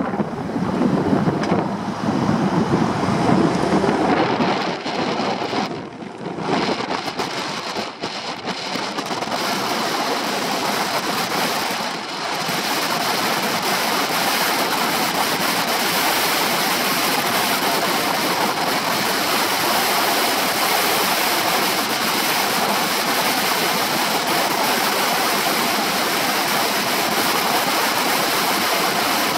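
Wind noise on a shoulder-mounted camera's microphone as a Honda PCX 125 scooter is ridden: an uneven low buffeting for the first several seconds, settling after about twelve seconds into a steady rushing hiss.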